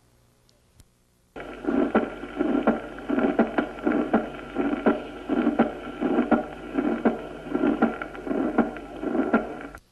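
Recorded heart sounds heard at the aortic area: regular lub-dub beats, a little faster than one a second, with a loud aortic component of the second heart sound, the sign of arterial hypertension. The recording starts suddenly about a second and a half in, over a steady background hum, and cuts off just before the end.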